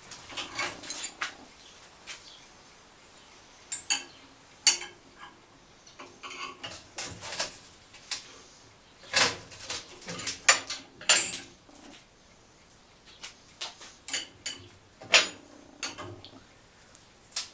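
Irregular metallic clinks, taps and short scrapes as steel hand tools, pliers and a steel rod handle and knock against a polished steel cone and a steel workbench. The loudest clinks come in the middle of the stretch.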